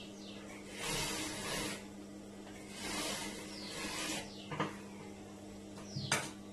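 Juki industrial sewing machine stitching in two short runs of about a second each, over the steady hum of its motor. There are sharp clicks about four and a half and six seconds in.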